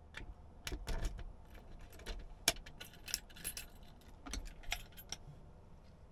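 A locker key on a coiled wristband jangling and clicking as it is worked in a personal locker's lock, then the locker door opening: a run of small metallic clicks and jingles over a few seconds.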